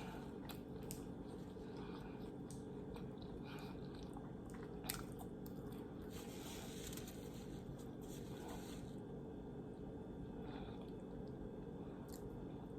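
Faint mouth and handling noises: a few soft clicks and crunches, with a soft rustle in the middle, over a low steady room hum.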